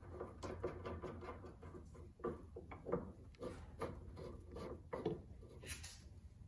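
Wrench working the nut on a Corvette's rear sway bar end link: a run of light, irregular metal clicks and scrapes, with a brief rustle near the end.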